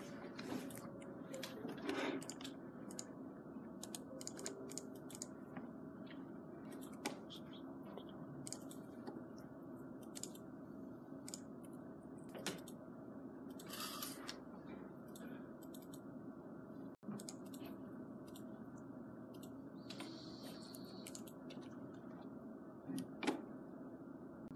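Faint, irregular clicking of typing on a computer keyboard, over a steady room hum.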